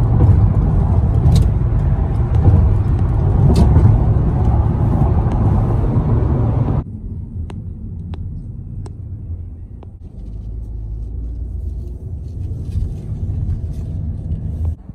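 Road noise inside a moving car at freeway speed, a loud steady rumble of tyres and engine. It cuts off abruptly about seven seconds in to a much quieter low in-car drone at street speed, with a few faint clicks.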